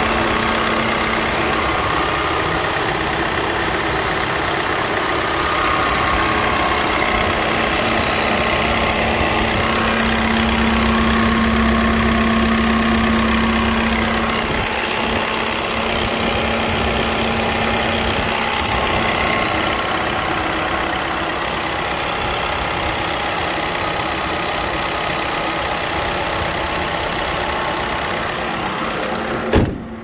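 A Volkswagen Crafter's 2.0 TDI diesel engine idling steadily, heard close up in the open engine bay. Near the end the bonnet bangs shut once, and the engine then sounds muffled.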